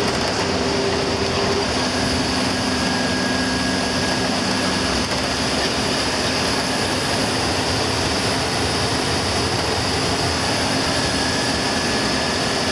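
Steady interior drone of a bus driving at speed on a paved highway, heard inside the cab: engine, tyre and wind noise blended into an even rush with a faint steady hum.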